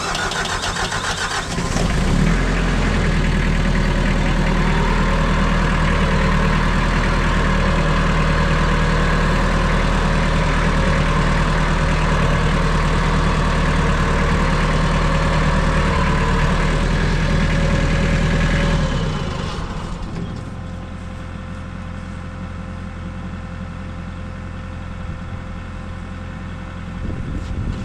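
Farm tractor engine heard from the driver's seat, stepping up to a higher throttle about two seconds in and running steadily, then dropping back to a lower, slower running about nineteen seconds in.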